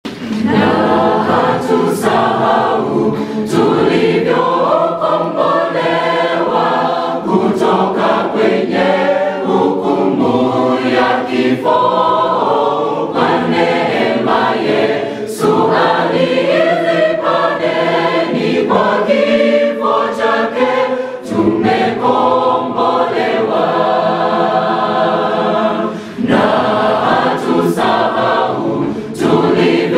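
Mixed choir of male and female voices singing a gospel song in Swahili in several-part harmony, with short breaks between phrases.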